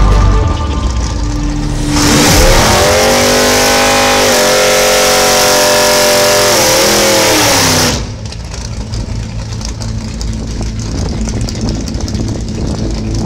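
A 1955 Chevy gasser's big-block V8, a 502 stroked to 541, revs up and holds high through a burnout, with the rear tyres spinning and smoking under a loud hiss. About six seconds later the revs fall and the sound drops away abruptly to a quieter rumble.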